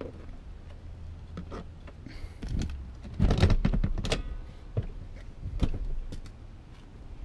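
A run of clicks and knocks over a low rumble, thickest and loudest about three to four seconds in.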